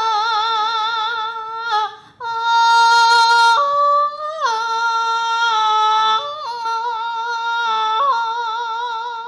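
A woman singing long, held notes with a wavering vibrato, stepping between pitches, with a short break about two seconds in.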